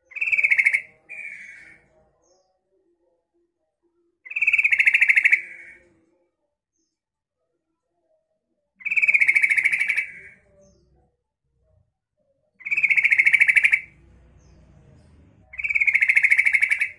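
Female yellow-vented bulbul (trucukan) calling to males: five fast, rattling chatter calls, each about a second long and roughly four seconds apart, the first broken into two parts.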